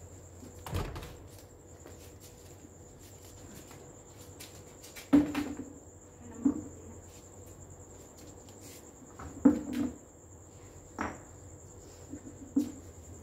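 About half a dozen irregular knocks and clunks as plastic plant pots and hollow concrete blocks are handled, shifted and set down, with a steady high chirring of crickets underneath.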